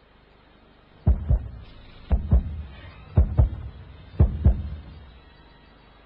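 Heartbeat sound effect: four deep double thumps, lub-dub, about one a second.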